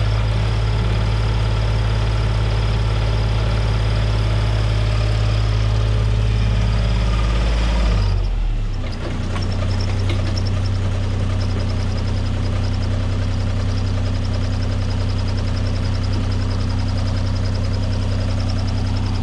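Komatsu mini excavator's diesel engine running steadily while working. About eight seconds in the engine note changes with a brief dip in loudness, then runs steadily again.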